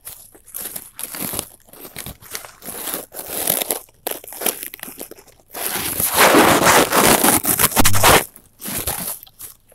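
Crackling, rustling handling noise from a handheld phone's microphone being rubbed and moved, in uneven bursts, with a long loud stretch from about six to eight seconds in.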